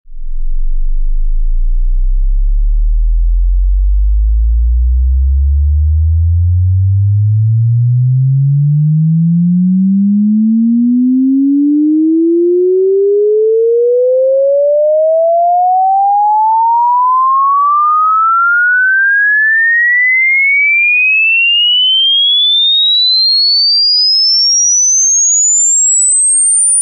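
A single pure electronic tone gliding steadily upward in pitch, from a deep hum to a very high whistle: a hearing-test frequency sweep.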